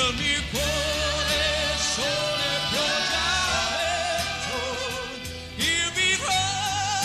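Male pop vocalist singing long held notes with vibrato over orchestral accompaniment, with a backing choir, and a short breath between phrases near the end.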